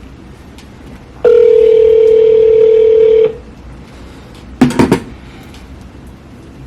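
Phone ringback tone on a speakerphone while a call rings out: one steady two-second ring of the North American ringback tone, followed about a second and a half later by a brief loud burst of sound.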